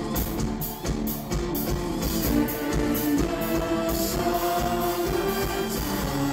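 Live pop-rock band playing, with the lead singer singing into a microphone over drums, the cymbals marking a steady beat.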